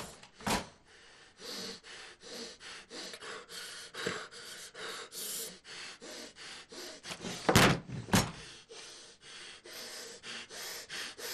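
A man breathing in quick, ragged gasps, about three a second, as he sobs in distress. Heavy knocks cut in once just after the start and twice, half a second apart, later on.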